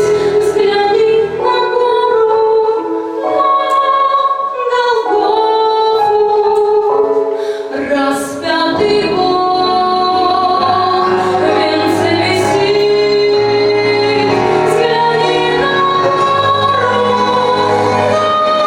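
Music: a woman singing a song, with accompaniment.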